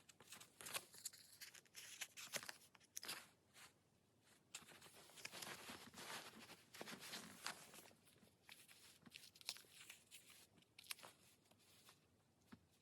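Quiet rustling and crinkling of paper and sticker sheets being handled, with short crackles like stickers peeled from their backing, thickest in the middle.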